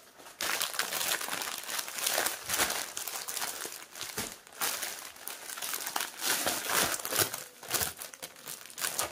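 Clear plastic packaging bag crinkling and crackling irregularly as a packed dress suit is handled and pulled out of it. The crackle starts about a third of a second in.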